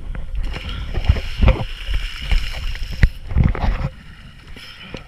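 Water splashing and sloshing around a camera held at the surface while people swim, in repeated rumbling surges, with a sharp knock about three seconds in.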